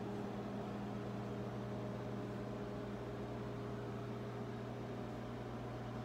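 Microwave oven running: a steady low hum over a soft even rushing noise.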